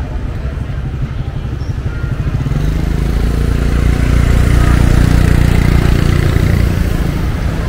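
A motor vehicle's engine passing close by, growing louder toward the middle and easing off near the end, over general street noise.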